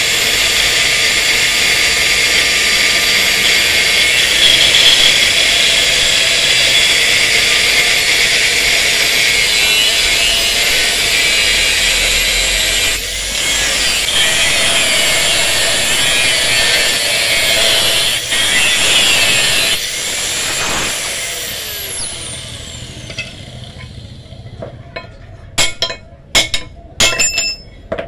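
Angle grinder with a cutting disc cutting a flat steel bar for a cleaver blank, with a loud, high, screeching run and a couple of brief dips in load. About 20 s in the grinder is switched off and spins down with a falling whine. Near the end come several sharp metal knocks.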